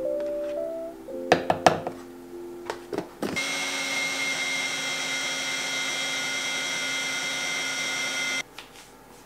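A Ninja countertop blender runs at one steady speed, blending a thick cashew cheesecake filling. It starts about three seconds in and cuts off abruptly near the end. Light music with plucked notes plays before it starts.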